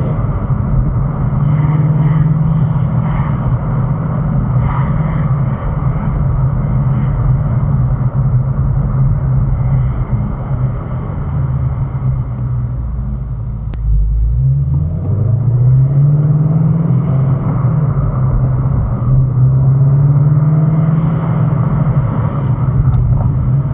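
2018 Ford Mustang Shelby GT350's 5.2-litre flat-plane-crank V8 running at a steady engine speed, dropping in pitch a little past halfway and then rising smoothly as it picks revs back up. In the 2,000–3,000 rpm range it carries a rattle that the owner takes to be something like piston slap inside the engine, not the exhaust.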